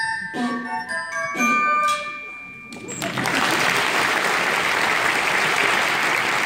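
Final notes of a small ensemble piece: a few struck, ringing bell-like notes that die away. About three seconds in, the audience breaks into steady applause.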